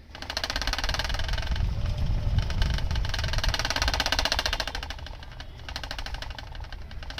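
Electric fan starting up suddenly and running with a fast, even clattering rattle over a low hum. The rattle dips briefly about five seconds in, then picks up again.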